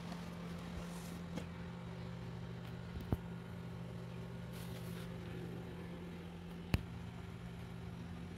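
Steady low hum, with two sharp clicks about three and a half seconds apart.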